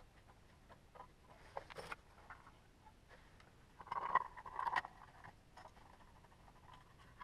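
Faint handling noises: scattered small clicks and light knocks as hands work on the pump station's pressure switch, with a denser patch of clicking and rustling about four seconds in.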